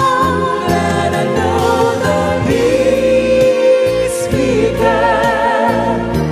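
Christian worship music with held, wavering sung notes over accompaniment, no words sung.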